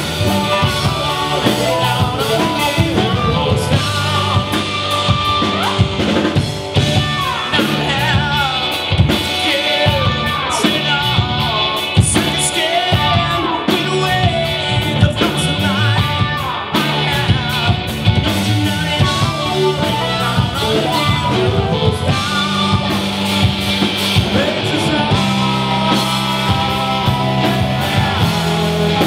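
Live rock band playing: electric guitars, bass guitar and drum kit, with a man singing lead.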